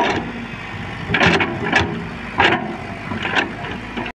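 Tracked excavator running under hydraulic load while working its bucket in sand with its track chain off, with about five loud metallic knocks from the machine at irregular intervals.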